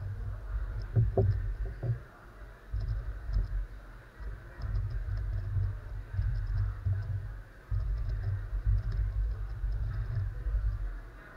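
A magnetic X-Man Galaxy Sculpted megaminx being turned fast: faint plastic clicks of the faces snapping round over a low, uneven rumble of hands working the puzzle on the table, which stops briefly a few times.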